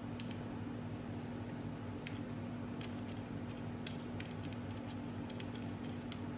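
Scattered light clicks and taps of chainsaw parts being handled and fitted together by hand, over a steady low hum.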